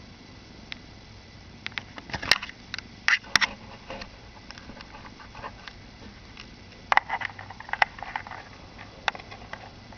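Scattered sharp clicks and rustles of handling close to the microphone, coming in two clusters, one about two seconds in and one near seven seconds, over a faint steady hiss.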